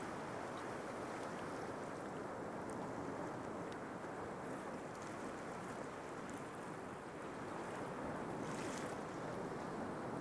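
Steady rushing of sea surf washing onto a sandy beach.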